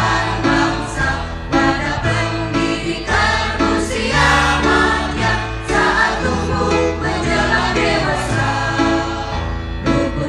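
Choir singing a school march song (mars) over an instrumental backing with a steady bass line.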